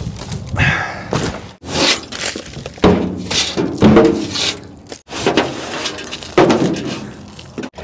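Debris being cleared out of a pickup bed: cardboard and scrap tossed onto a junk pile with thunks and clatter, then a broom sweeping and scraping dirt and junk off the bed.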